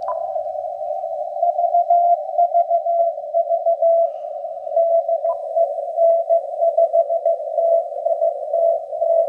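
Ham radio receiver playing a Morse code (CW) signal from a beacon in the 10-metre band: a keyed tone of dots and dashes over steady, narrowly filtered band hiss, the keying starting about a second and a half in. Two short higher beeps sound, one at the very start and one about five seconds in.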